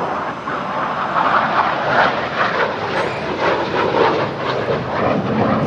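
F/A-18 Hornet jet aircraft noise: a loud, steady rushing roar that swells in at the start and holds.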